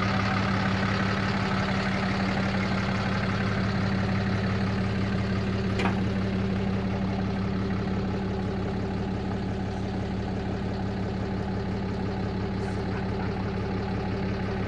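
Ram dually pickup truck's engine idling with a steady low hum, and a single sharp click about six seconds in.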